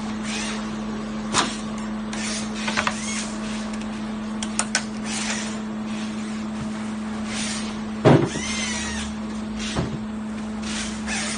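Steady machine hum, with repeated hand scraping strokes and a few sharp clicks as excess edge banding is trimmed along the edge of a wooden tabletop. A heavy knock of the board on the table comes about eight seconds in, followed by a short squeak, and a smaller knock follows soon after.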